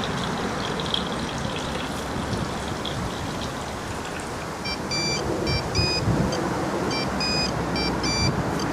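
A steady rushing background noise, then from about halfway a run of about ten short electronic beeps, some longer than others: a phone's keypad beeping as a number is dialled.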